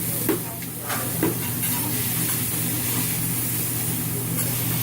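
Food sizzling on a hibachi griddle, with two short sharp clicks in the first second or so over a steady low hum.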